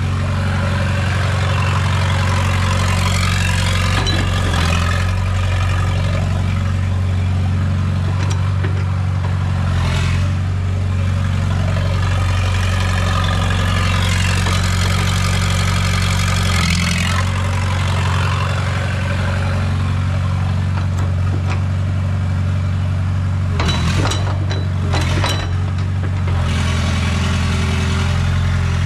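Rebuilt diesel engine of a Komatsu PC60-5 mini excavator running steadily at idle, with a few sharp knocks about ten seconds in and again near the end.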